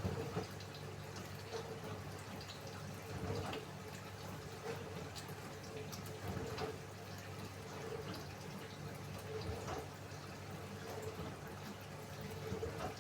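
Samsung AddWash front-loading washing machine running with a steady low hum while water sloshes and drips inside it. A soft swish recurs about every second and a half.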